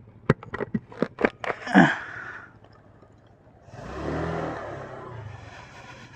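Motorcycle rolling slowly along a narrow concrete path: a run of sharp knocks and rattles, then the engine revving briefly about four seconds in.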